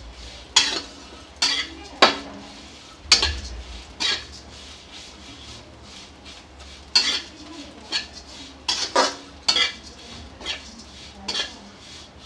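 Metal spatula scraping and knocking against a metal kadhai as vermicelli is stirred and roasted in ghee: irregular clinks and scrapes, the sharpest about two and three seconds in and again around seven seconds.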